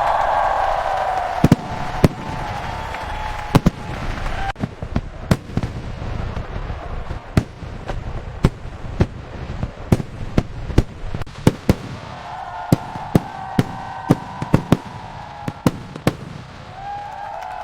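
Aerial fireworks bursting: a long, irregular run of sharp bangs and cracks, sometimes several a second, over a rumbling background of more distant bursts.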